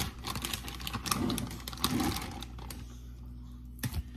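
Plastic packaging of raw chicken breasts crackling and clicking rapidly as it is pried open by hand, easing off after about two and a half seconds, with one sharp knock near the end.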